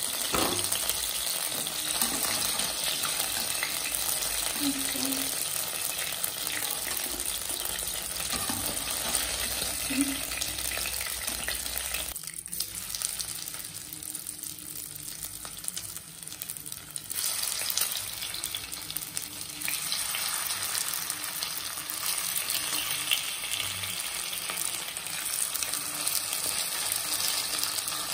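Chicken frying in hot oil in a wok: a steady sizzle, with a few light knocks and scrapes of a slotted spoon against the pan. The sizzle drops quieter for a few seconds about halfway through, then picks up again.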